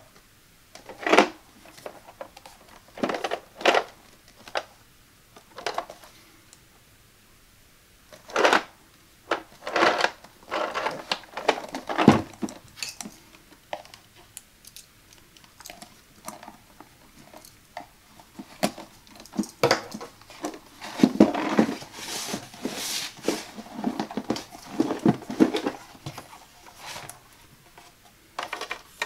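Hands unboxing a ThinkFun Circuit Maze game: scattered hard taps and clicks of the box and its contents being handled, with a longer spell of rustling and crinkling packaging in the last third.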